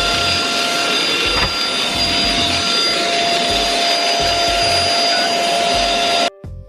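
Vacuum cleaner running steadily with a loud hiss and a high whine. It cuts off suddenly near the end, over background music with a steady bass beat.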